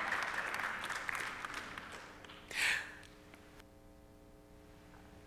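Congregation answering with scattered applause that fades out over a couple of seconds, with a brief burst of noise about halfway. A faint steady hum follows.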